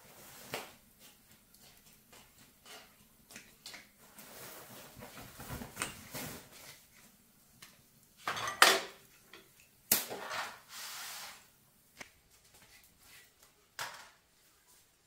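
Scattered knocks and clatter of objects being handled, with short rustles between them; the loudest knocks come about eight and a half and ten seconds in.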